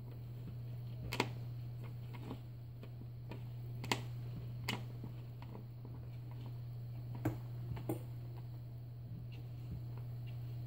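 Irregular sharp clicks and taps, about five louder ones and several faint ones, from a sleeping wheaten terrier's twitching paws as she dreams. A steady low hum runs underneath.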